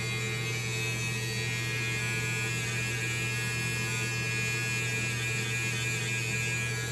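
Electric hair clippers running with a steady buzz while cutting hair around the ear.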